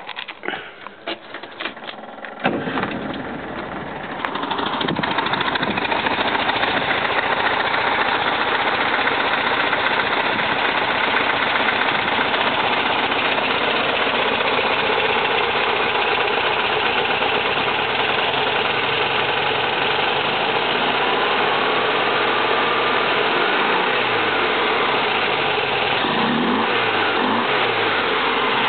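1971 VW Type 3's air-cooled flat-four engine starting up a few seconds in, then idling steadily. The engine misfires and seems to run on only two cylinders, and the owner is not sure why.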